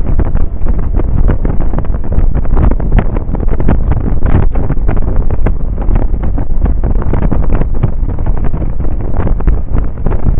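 Heavy wind buffeting the microphone of a camera on a scooter moving at road speed: a loud, gusty rumble with rapid uneven flutter, heaviest in the low end.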